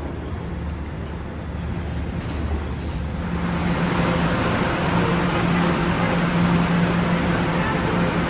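New York City Subway train in the station: its wheel and track noise grows over the first few seconds, then holds steady with a low motor hum.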